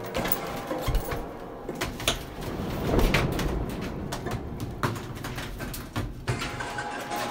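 Plastic laundry basket being carried and handled, giving irregular knocks, clicks and rattles.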